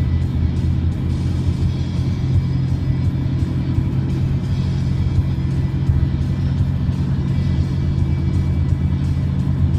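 Music from a car radio playing inside a moving car, over a steady low rumble of engine and road noise.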